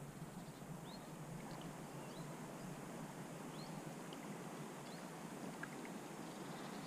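Faint steady rush of river water, with a few short, high, rising chirps scattered through it.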